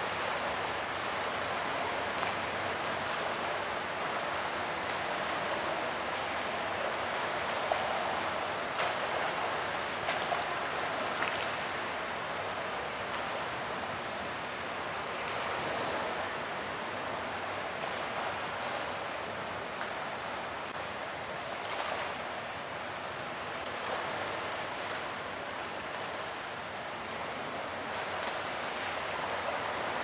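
Fountain water splashing with a steady rush, with a few brief sharper splashes standing out.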